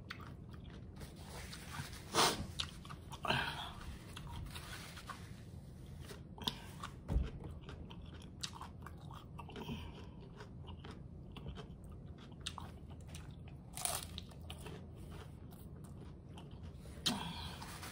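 Close-miked chewing of a crunchy hard-shell taco: wet mouth sounds with a few sharp crunches scattered through.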